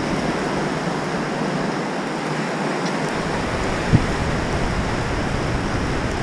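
Steady rush of surf washing up on a beach, with wind rumbling on the microphone and one short low thump about four seconds in.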